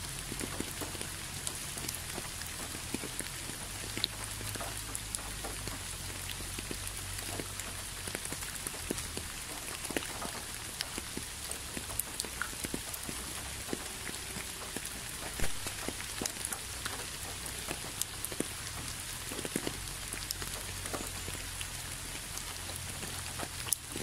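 Steady rain falling: a constant hiss with many separate drops ticking through it, one drop clearly louder a little past the middle.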